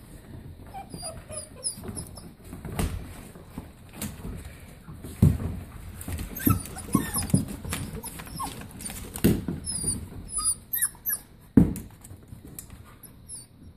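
A litter of seven-week-old puppies squabbling over raw chicken backs: high squeaky whines and yips, with scattered sharp knocks and thumps on the hardwood floor.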